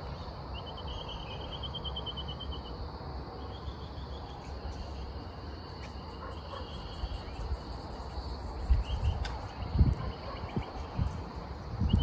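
Outdoor ambience: a rapid high trill repeats several times, over a faint fast ticking higher up. In the second half, gusts of wind buffet the microphone.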